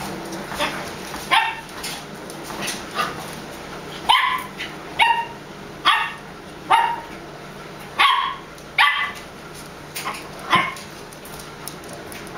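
A dog barking in play: a run of about a dozen short, sharp, high barks, under a second apart, loudest in the middle of the stretch.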